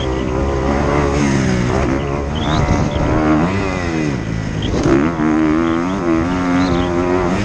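Kawasaki KX250F four-stroke single-cylinder dirt bike engine being ridden hard, its pitch rising and falling with the throttle and gear changes, with a deep dip and quick climb a little before five seconds in.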